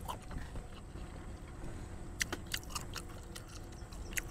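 Chewing and lip-smacking of people eating noodles, with a handful of short sharp clicks a little over two seconds in and one near the end, over a steady low rumble.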